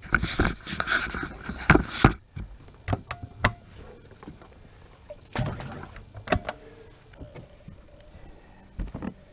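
Irregular knocks and clatter: a quick run of knocks in the first two seconds, then single knocks every second or so.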